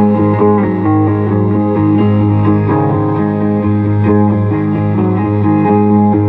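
Hollow-body electric guitar played solo through an amplifier: an instrumental passage of picked notes over a sustained low note.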